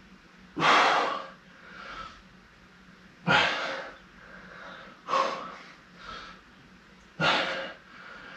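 A man breathing hard from exertion during a workout: four loud, forceful exhales about two seconds apart, with fainter breaths in between.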